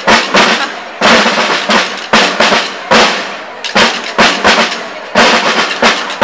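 Marching band drum section playing a loud cadence: rolling snare drums and bass drum beats, with heavy accents about once a second.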